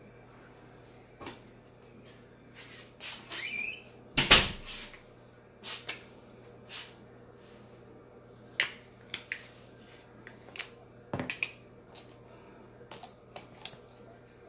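Kitchen handling noises: scattered clicks and knocks of things being picked up and set down. A short scrape leads into one loud thump about four seconds in, and there is a small cluster of knocks near eleven seconds.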